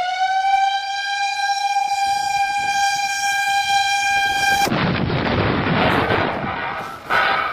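Outdoor tornado warning siren sounding one steady tone with a rich, buzzy overtone series, rising a little in pitch at the start and then holding for about five seconds. It cuts off abruptly into loud rushing noise, and near the end a different steady tone starts.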